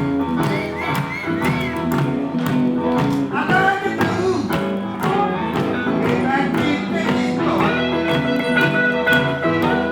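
Live blues band playing an instrumental passage between sung lines: guitar with bent, sliding notes over a steady beat.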